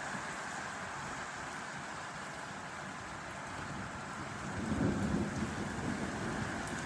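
Steady rain falling, with a low rumble of thunder rising about two-thirds of the way in.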